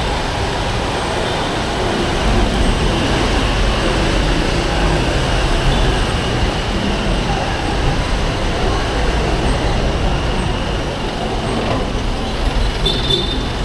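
Dense rush-hour street traffic heard from a bicycle riding in its midst: motorcycle, jeepney and bus engines with road noise, a steady loud mix with a deep rumble underneath. A few brief high-pitched tones sound near the end.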